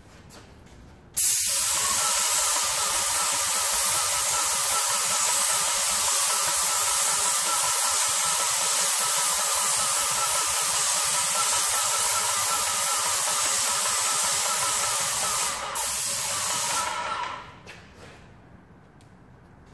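Airless paint spray gun with a Wagner/Titan 517 HEA tip spraying paint at about 1000 PSI: a loud, steady hiss that starts abruptly about a second in, breaks briefly near the end, then cuts off.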